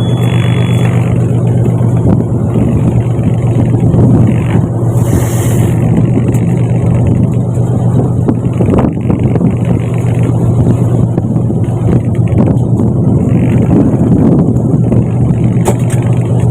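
Fishing boat's engine running steadily at a constant speed, a loud low hum, with a rush of water and wind over it and a short hiss about five seconds in.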